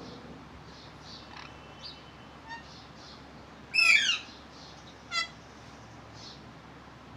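Pet parrot calling: one loud, pitched call about four seconds in, a shorter call about a second later and a faint one before them, over soft repeated chirps.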